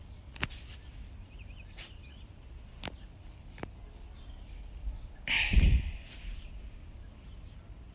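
Quiet outdoor background with faint bird chirps and a few light clicks, as from a phone being handled. About five seconds in comes a brief, louder rustle close to the microphone.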